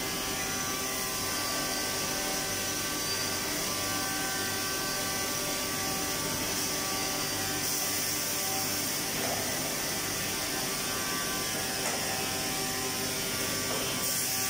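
Woodworking production-line machinery running: a steady mechanical hum with several steady tones and a high hiss.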